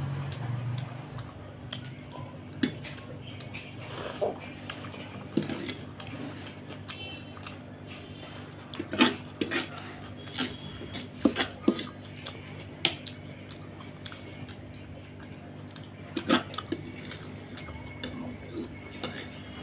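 A metal fork clinking and scraping against a plate as noodles are picked up and eaten: irregular sharp clicks, with a busy run of them about halfway through.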